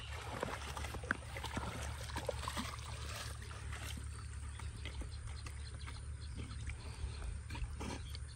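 German shepherds swimming, the water lapping and splashing around them in a steady stream of small splashes, over a constant low rumble.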